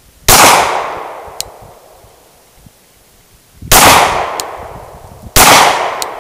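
Three single pistol shots from a Glock fired one-handed, spaced a few seconds apart. Each sharp report fades out over a second or more, and a short faint high tick follows each one.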